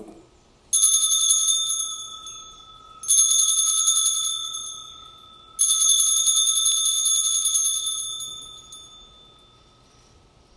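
Altar bells (Sanctus bells) shaken three times, about two and a half seconds apart, at the elevation of the chalice after the consecration. Each ring is a bright jingle over a sustained bell tone, and the last one dies away near the end.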